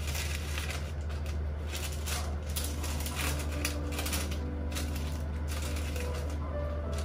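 White paper wrapping rustling and crinkling as it is unfolded by hand, in a string of short crackles.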